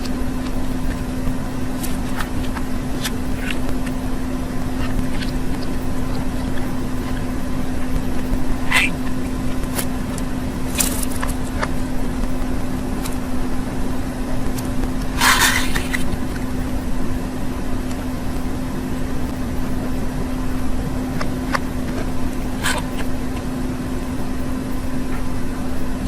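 Budgerigar chirping in short, high calls a handful of times over a loud, steady background hum and hiss.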